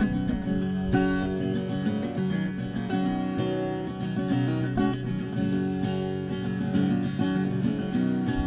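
Steel-string cutaway acoustic guitar played with the fingers: picked notes and chords ringing on without pause.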